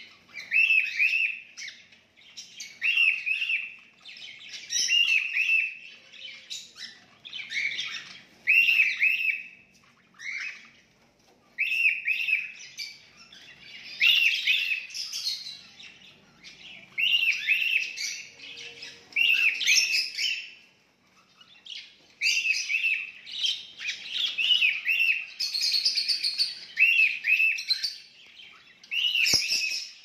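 A flock of caged budgerigars chirping, in phrases of quick repeated arched chirps with short pauses between them. One sharp click near the end.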